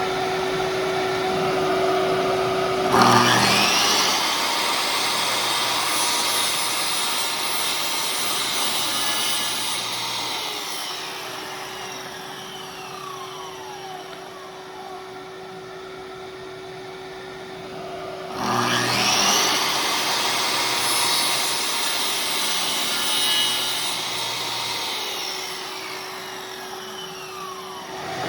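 A woodworking power tool is switched on twice. Each time its motor spins up with a rising whine, runs for about seven seconds, and winds down with a falling whine. A steady hum carries on between the two runs.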